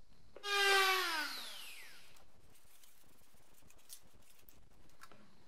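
A small handheld power tool's motor, heard at speed and then spinning down, its whine falling steadily in pitch over about a second and a half. Faint rubbing and clicks follow.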